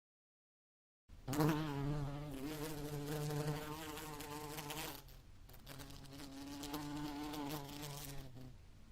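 House fly buzzing in flight: a wavering, pitched drone that starts about a second in, drops away briefly around the middle, returns, and fades near the end.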